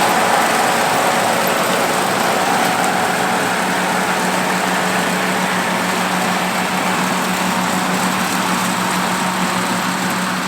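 Oliver 1655 tractor's engine running steadily while powering a two-row New Idea 324 corn picker, a constant drone that eases off slightly near the end.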